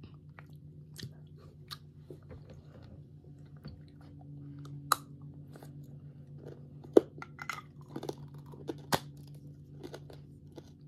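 A child's mouth smacking and sucking on a hard-candy lollipop, with irregular wet clicks and smacks, the sharpest about five, seven and nine seconds in.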